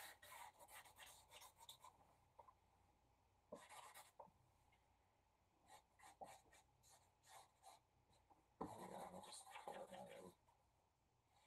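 Broad felt tip of a Copic Wide marker rubbing back and forth on paper, filling in a large area: a run of short quick strokes, a few scattered strokes, then a longer stretch of continuous scrubbing near the end. Faint.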